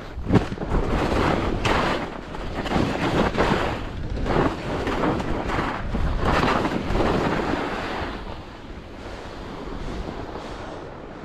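Skis scraping and carving on packed snow through a series of turns, swelling with each turn every second or two, with wind buffeting the microphone. The scraping dies down after about eight seconds.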